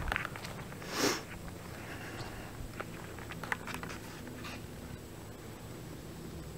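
A person sniffing once, sharply, about a second in, then faint scattered ticks and scuffs of footsteps on dirt and pine straw over a low steady background hum.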